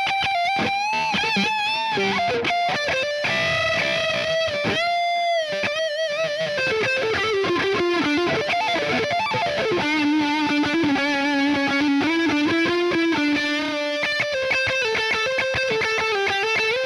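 Ibanez S320 electric guitar fitted with DiMarzio pickups, playing a single-note lead line of long sustained notes with wide vibrato and string bends. In the second half it settles on a lower note held for several seconds.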